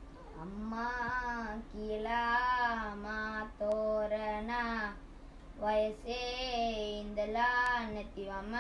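A boy singing a Sinhala song solo and unaccompanied, in held notes with short pauses between phrases.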